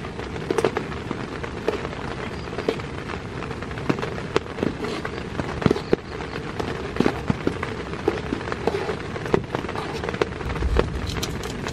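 Heavy rain falling on a tent, a steady hiss broken by many scattered sharp taps.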